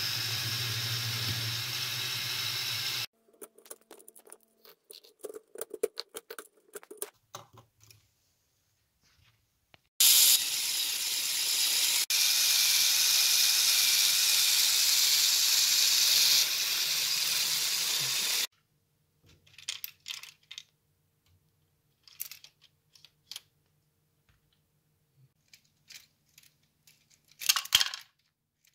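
LEGO Technic gear train driven by a Power Functions XL motor, whirring steadily in two stretches, one at the start and one from about a third of the way in to past halfway. Scattered plastic clicks and rattles of the Technic parts fall between and after the stretches. Near the end comes a brief clatter of wood pellets in the excavator's hopper.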